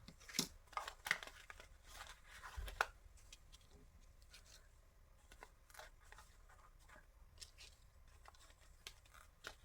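Paper and cardstock embellishments being handled: scattered light rustles and taps, busier in the first three seconds and sparser after.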